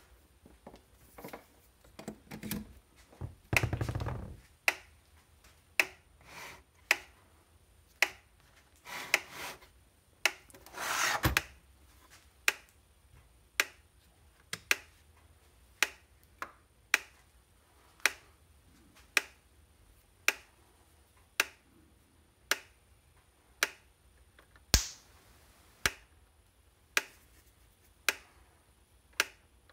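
Gallagher M1500 plug-in electric fence energizer ticking with each output pulse: a sharp click about every 1.1 seconds, steady and even, the sign that the unit is powered and firing. Around four seconds in and again around ten to eleven seconds, the unit is handled and turned over on the bench with a scraping rub.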